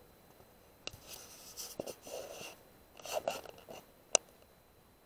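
Close handling noise from the shooter's rifle and scope camera: rustling and scraping with a few small clicks, then one sharp click about four seconds in.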